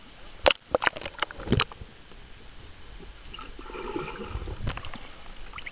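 Pool water sloshing and bubbling, heard with the camera's microphone under water: a handful of sharp knocks and splashes in the first two seconds, then a muffled churning as a swimmer kicks nearby.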